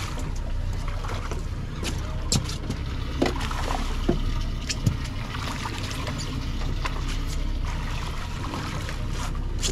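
Steady low rumble on a small offshore fishing boat, with water trickling and scattered clicks and knocks of fishing tackle. A few brief falling squeaks come a few seconds in.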